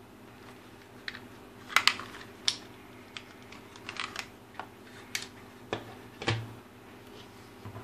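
Irregular plastic clicks and clacks as the hard plastic case of an Ltl Acorn 5210 trail camera is opened and handled. There are about a dozen sharp clicks at uneven intervals, and the loudest pair comes about two seconds in.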